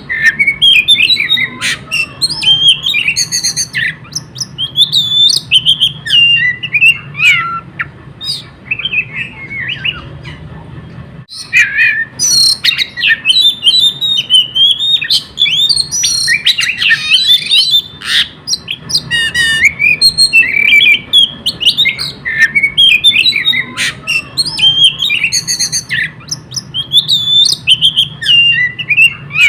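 Oriental magpie-robin singing nonstop: a fast, varied stream of whistles, trills, chirps and harsh squawky notes, with a brief lull about ten seconds in.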